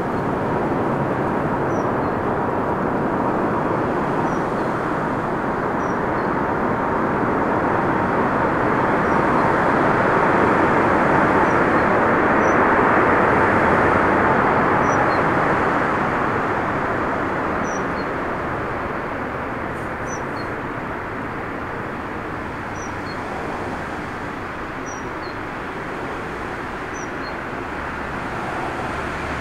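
Airbus A380 jet engines running as the airliner rolls along the runway: a steady roar that swells for about the first half and then slowly fades. Storm wind rumbles on the microphone underneath.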